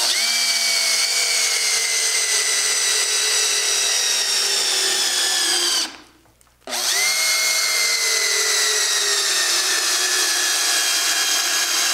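Cordless drill-driver driving screws into a wooden keelson in two long runs of about six seconds each, with a short pause between. In each run the motor's whine falls steadily in pitch as it slows; the battery is nearly spent.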